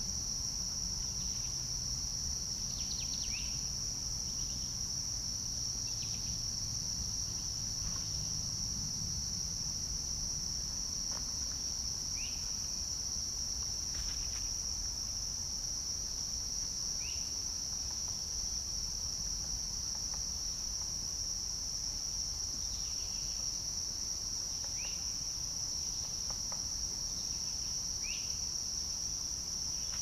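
A steady, high-pitched insect chorus, typical of crickets, drones without a break. Faint short chirps, likely from birds, sound about eight times through it.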